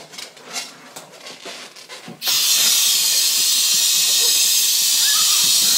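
Gas rushing from a balloon inflator nozzle into a balloon: a loud steady hiss that starts suddenly about two seconds in. Before it, light handling clicks and rustling.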